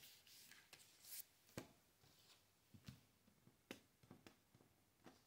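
Tarot cards being laid and slid on a wooden table, very faint: a soft swish of card over card in the first second, then several light taps as cards are set down.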